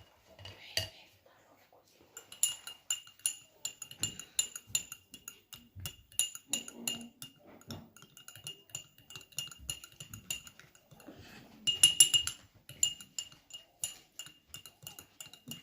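A spoon stirring homemade herbal cough syrup with honey, clinking and scraping against its container in quick repeated strokes with a ringing note. The clinking starts about two seconds in and has a louder flurry near the end.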